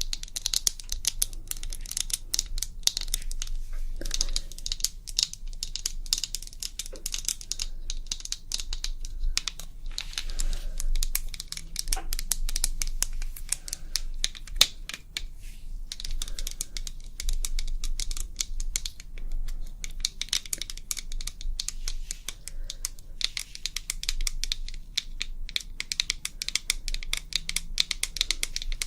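ASMR tapping: a fast, uninterrupted patter of light, crisp taps, like fingernails drumming on a hard surface, coming in uneven flurries with brief lulls. A faint low hum runs underneath.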